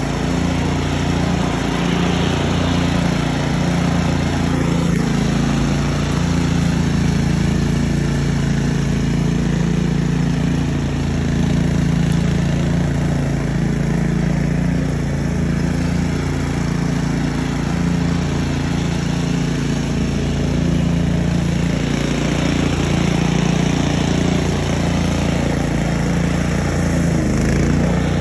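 Engine of a DR Field & Brush Mower running steadily, with a slight dip in pitch near the end.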